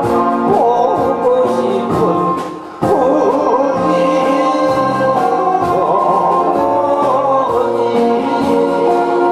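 A man singing a song into a handheld microphone over instrumental accompaniment, the music dipping briefly about two and a half seconds in before coming straight back.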